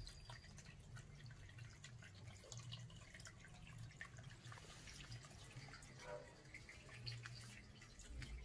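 Faint drips and trickling of water into a garden fish pond, many small irregular drops, over a low steady hum.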